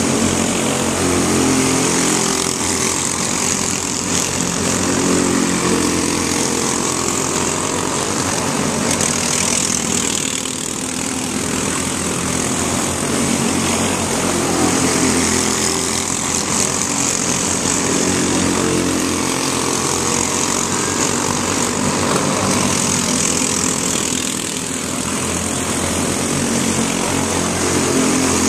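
Microstock race cars' small engines running hard in a pack, their pitch rising and falling every several seconds as they accelerate down the straights and ease into the turns.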